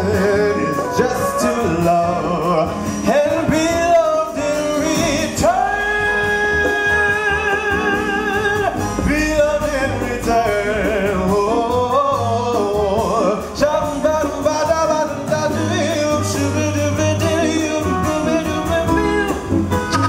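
Male jazz vocalist singing with sliding, bending notes over a live jazz band of piano, double bass and drums, holding one long note in the middle.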